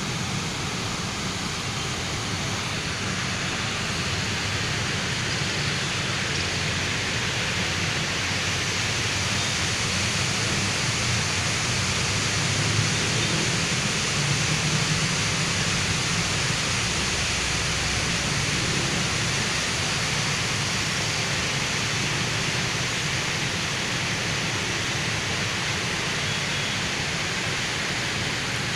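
Steady rushing of river water pouring over a weir under a bridge, an even wash of noise without breaks.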